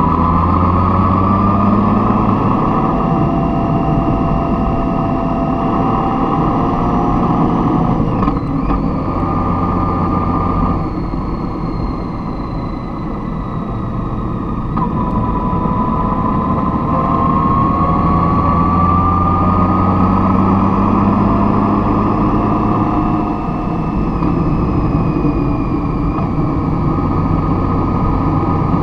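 A vehicle engine running while under way. Its pitch slowly climbs and then drops sharply about eight, fifteen and twenty-three seconds in.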